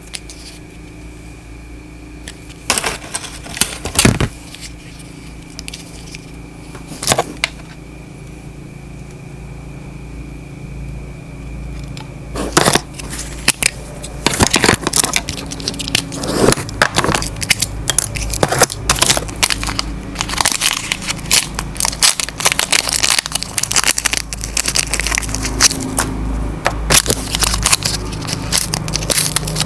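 Handling noises, crackling and crinkling with sharp clicks, over a steady low hum. There are only a few isolated clicks at first, then it turns busy and continuous about halfway through.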